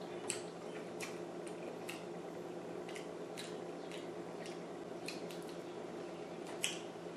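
Eating sounds: scattered short wet clicks and smacks of chewing sushi, with light chopstick taps, over a steady low hum; two sharper clicks stand out, just after the start and near the end.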